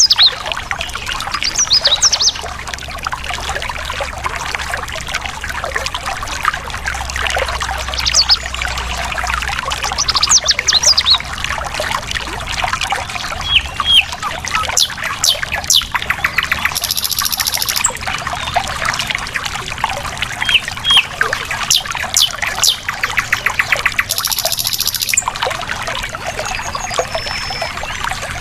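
Stream water trickling and pouring over rocks in a steady rush, with wild birds chirping over it in short sharp calls. Two brief buzzy trills come, one past the middle and one near the end.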